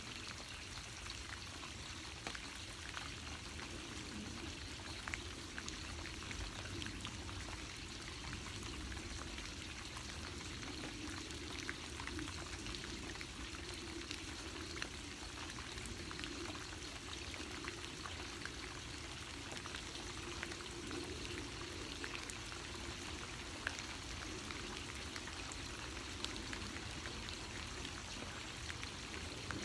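Steady rain falling, an even hiss scattered with many small, sharp drop impacts.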